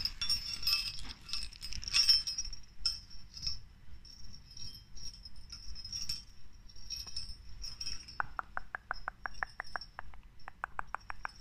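Small metal jingle bells handled and clinking, with a thin high ring. About eight seconds in, a fast, even run of ticks starts, about eight a second.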